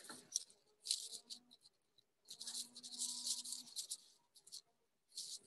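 Faint, intermittent rustling hiss over a video-call microphone, in short patches about a second in and again from about two and a half to nearly four seconds in.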